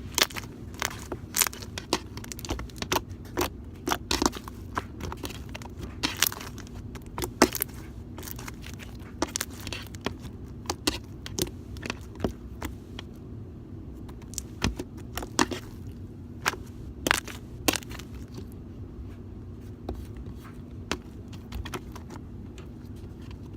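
Jiggly homemade glue-and-borax slime squeezed and pressed by hand, giving irregular sharp clicks and pops, thick for the first half and sparser later, over a steady low hum.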